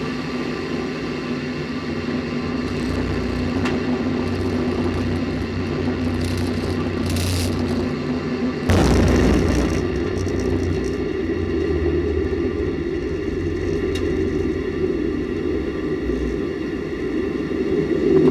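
Steady rumble and rush of air picked up by a camera mounted on a space shuttle solid rocket booster, with a sudden, louder burst about nine seconds in that fades back into the rumble.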